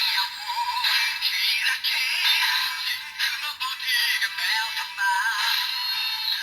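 Bandai DX Diago Speedy Wonder Ride Book playing a sung jingle in the style of an old Shōwa-era TV advertisement through its small built-in speaker, thin with no bass.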